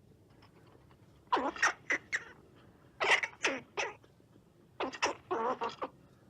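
Squirrel chattering sound effect: three quick bursts of short, sharp calls, a few calls in each.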